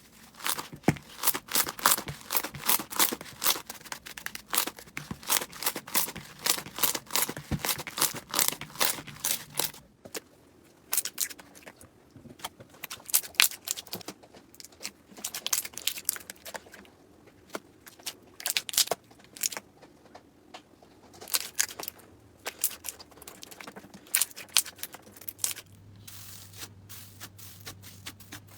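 Slime being worked by hand, giving rapid crackling pops and clicks. The pops come thick and fast at first, then thin out into scattered clusters about ten seconds in.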